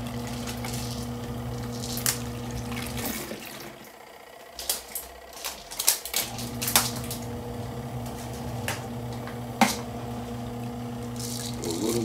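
SUPER DEAL portable twin-tub washing machine's wash motor humming as its impeller churns clothes in soapy water, with sloshing and splashing. The motor stops about three seconds in and starts again about three seconds later, the pause as the wash action changes direction. Scattered sharp clicks and splashes sound during the pause.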